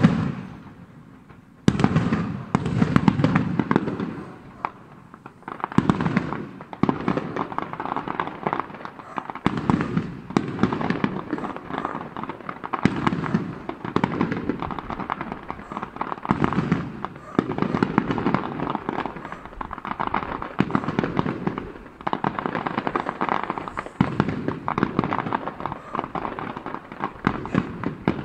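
Fireworks display: aerial shells bursting one after another every second or two, with dense crackling between the booms and a short lull about a second in.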